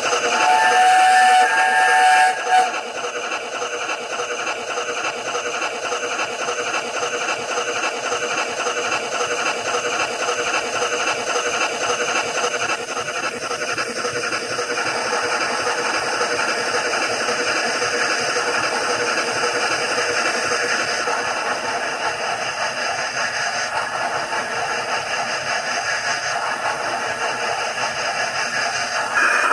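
Sound decoder of a Hornby A4 'Kingfisher' model steam locomotive, playing through the model's small speaker: a two-tone chime whistle for about two seconds near the start, then a steady steam-locomotive running sound.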